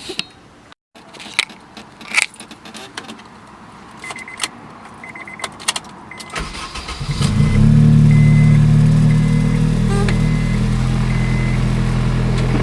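Keys jingle and a car's high warning chime beeps repeatedly, then about six seconds in the Acura RSX's K20 four-cylinder cranks, catches and settles into a steady idle, run to bleed air bubbles out of the cooling system after a radiator replacement.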